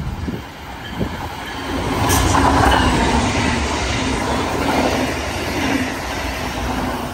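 Brightline passenger train passing close by at speed, its wheels running on the rails. It grows louder about two seconds in, stays loud, and eases a little near the end.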